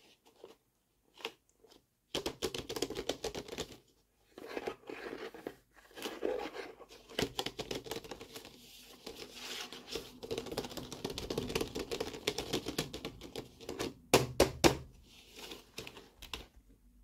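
Fingers rubbing, scratching and pressing on the clear plastic blister window and card backing of a toy package, a dense crinkling and crackling that starts about two seconds in. Near the end come a few sharp taps, the loudest sounds.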